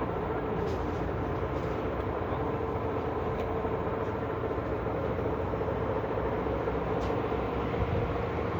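Concrete truck's diesel engine running steadily, a constant drone with a few faint ticks over it.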